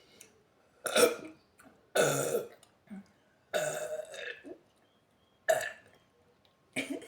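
A woman burping several times in a row, with short, loud burps spaced a second or so apart.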